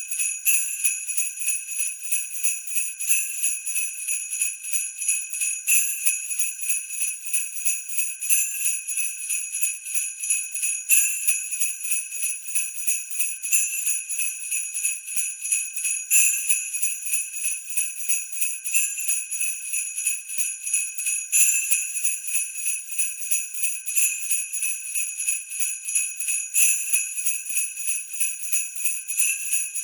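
Sleigh bells (jingle bells) shaken in a steady rhythm, ringing continuously, with a stronger shake about every two and a half seconds.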